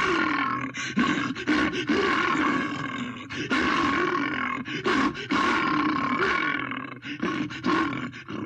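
Creature sound effect for Daeodon, the prehistoric 'giant boar' entelodont: a string of harsh roaring calls that waver in pitch, one after another with brief breaks.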